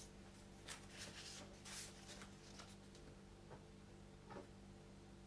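Near silence: room tone with a faint steady hum and a few faint scattered ticks and rustles.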